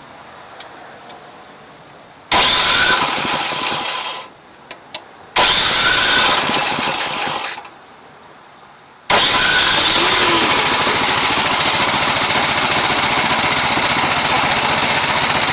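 Husqvarna ST224 snow blower's single-cylinder engine started with no priming after carburetor jet cleaning. About two seconds in it fires and runs for roughly two seconds before dying away, catches and dies again the same way, then about nine seconds in it starts and keeps running steadily.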